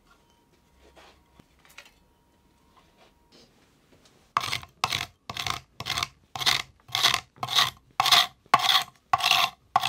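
A few faint knocks of wooden boards being handled, then from about four seconds in a hand scraper scraping dried glue squeeze-out off a glued-up wooden cutting board, in even back-and-forth strokes about two a second.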